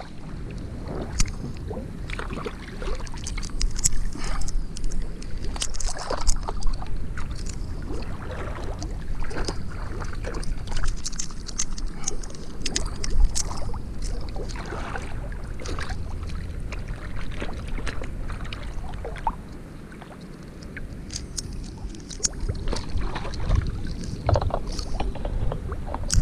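Canal water splashing and sloshing close to the microphone as a person swims, with many irregular splashes over a low rumble of moving water.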